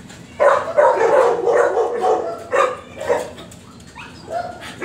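Dogs in shelter kennels barking: a quick run of barks, about two or three a second for some three seconds, then a short pause and one more bark near the end.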